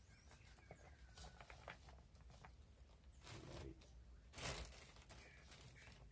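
Faint snaps and rustles of fresh bean pods being split open by hand, with the shelled beans dropping into a plastic bowl. A louder, short crackling rustle about four and a half seconds in.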